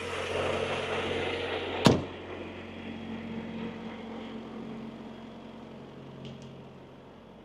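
Semi-truck's diesel engine idling steadily, with a single loud slam about two seconds in as the cab door is shut.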